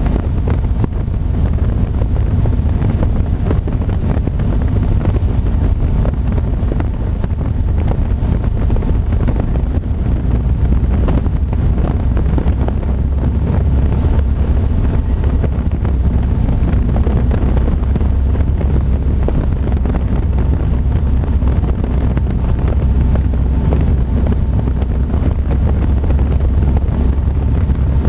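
Ercoupe's four-cylinder piston engine and propeller droning steadily in cruise flight, heard from inside the small cockpit with wind rushing over the microphone.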